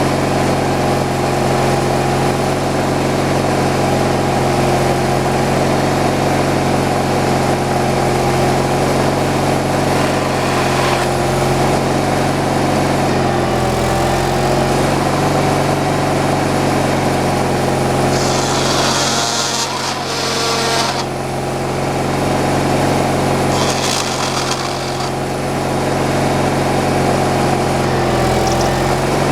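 Slab-wood kindling cutter running: a steady engine drone throughout, broken twice by a short burst of high hissing noise, first about two-thirds of the way through and again a few seconds later, as the chainsaw chops slab wood.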